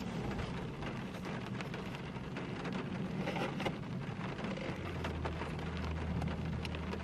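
Rain falling on a car's roof and windows, heard from inside the cabin as a steady hiss dotted with small drop ticks. A low steady hum runs underneath and grows stronger about five seconds in.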